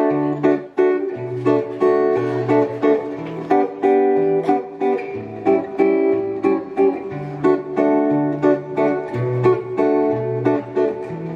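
Acoustic guitar strumming chords in a steady rhythm over a moving bass line: the instrumental intro of a song before the singing starts.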